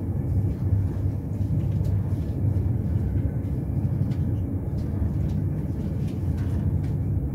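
Enterprise inter-city train running along the line, heard from inside the carriage as a steady low rumble, with a few faint clicks.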